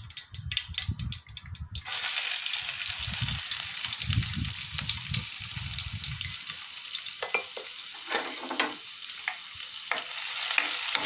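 Mustard seeds crackling in hot oil, then chopped onion tipped into the pan about two seconds in, setting off a loud steady sizzle. A wooden spatula then stirs the onion, with scattered clicks and scrapes in the pan.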